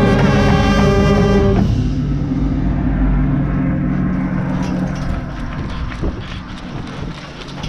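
A drum corps brass line holds a loud chord, with a euphonium right at the microphone. The chord cuts off about a second and a half in, and a lower sound fades over the next few seconds. Then come scattered footfalls and clatter as the players run across the field.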